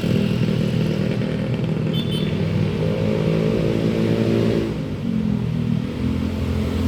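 Bus engine running steadily, its pitch edging up briefly around the middle, with a short high beep about two seconds in.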